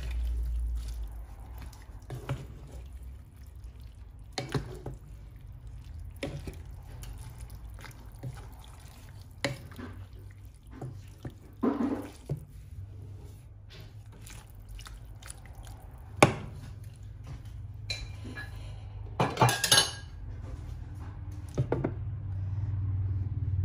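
Wooden spatula knocking and scraping against a metal cooking pot while cabbage is stirred through broth, with liquid sloshing, in scattered separate knocks and a quick cluster of clicks about two-thirds of the way in. A glass lid clinks onto the pot near the end, over a steady low hum.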